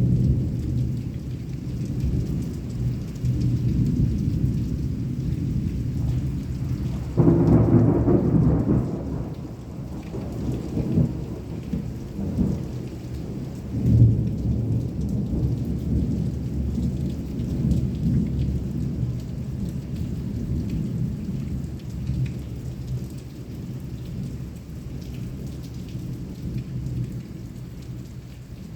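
Thunderstorm: heavy rain falling under long, rolling thunder. A loud crack of thunder breaks out about seven seconds in and rumbles on, another strong peak comes about halfway through, and the rumble slowly dies down toward the end.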